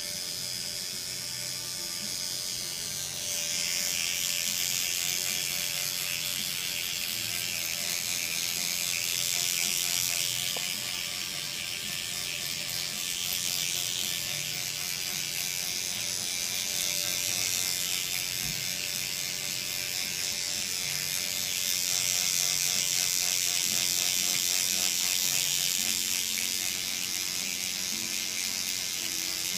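Electric derma pen (motorized microneedling pen) buzzing as its needle cartridge runs against the skin of the face. It grows louder about three seconds in, then swells and eases as it is moved over the skin.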